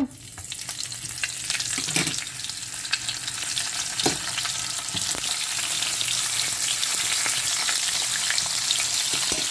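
Dried salted threadfin bream (bisugo) sizzling and crackling in hot oil in a frying pan, building up over the first second as the fish goes in and then holding steady. A few light knocks sound in the pan in the first half.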